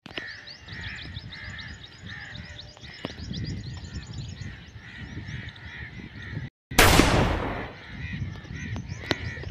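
Crows cawing over and over, with many smaller birds chirping. About two-thirds of the way through, a loud sudden burst cuts in and fades over about a second.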